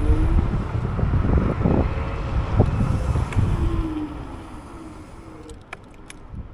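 Wind buffeting the microphone, with low road rumble, on a moving electric scooter. The wind noise eases off about four seconds in.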